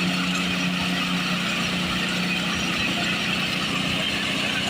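Engine of road-paving machinery running steadily, with a constant low hum.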